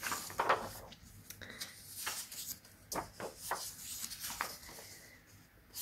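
Loose book pages being moved and shuffled by hand: quiet paper rustling, with several brief swishes and slides of sheets over one another.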